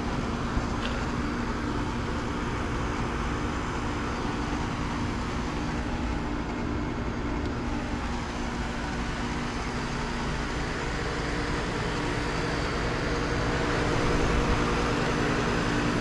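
Central heat pump outdoor units running in cool mode, the OxBox unit closest: a steady compressor hum with a few low hum tones under the even rush of the condenser fan. It grows a little louder near the end.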